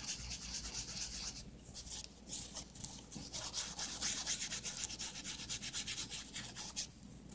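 A distress ink pad being rubbed against the edges of a book page, giving a dry, papery scrubbing in quick repeated strokes. It is the paper's edges being inked to an aged, vintage look.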